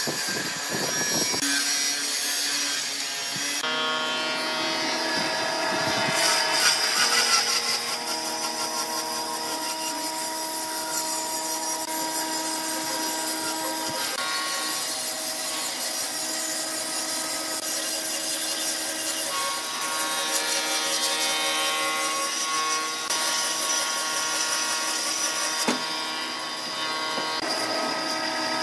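Bandsaw running and cutting lengthwise through a bark-covered log: a steady whine of several tones over a hiss of sawing, with the tones shifting a few times as the cut goes on.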